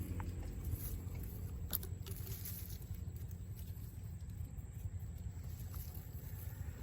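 Faint rustling and handling noises over a low steady rumble, with one sharp click just under two seconds in.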